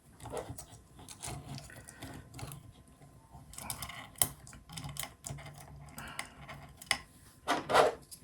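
Hands working a 3D-printed plastic robot chassis and its small bolts: plastic parts rubbing and knocking against each other, with scattered small clicks. There is a sharper knock about four seconds in and a louder short rattle near the end.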